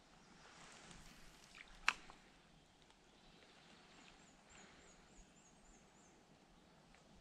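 Quiet outdoor ambience by a creek, with one sharp click about two seconds in and a faint run of high, quick chirps, about four a second, from about four to six seconds in.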